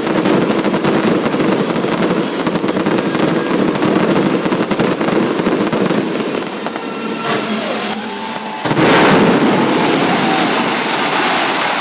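Fireworks finale: a rapid, unbroken barrage of aerial shell bangs and crackle, with one sharp, louder burst a little under nine seconds in.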